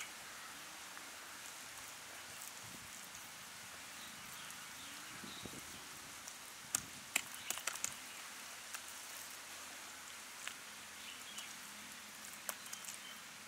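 Hand rubbing and patting thick masala paste onto a whole snakehead murrel fish on a steel plate: soft wet smacks and clicks, clustered about seven to eight seconds in, over a steady hiss.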